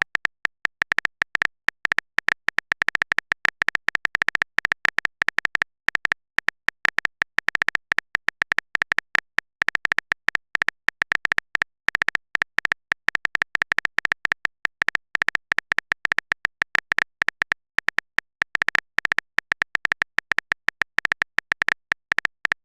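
Phone-keyboard typing sound effect: a rapid, irregular run of short, high clicks, several a second, each with a slight beep-like pitch.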